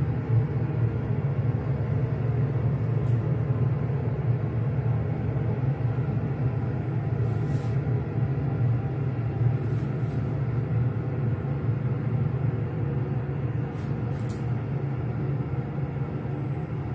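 Steady low rumbling hum of running machinery, with a few faint short hisses over it.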